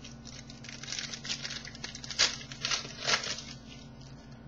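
Trading cards being handled: a short run of crisp rustling and crinkling clicks as the next card in the pack is slid out.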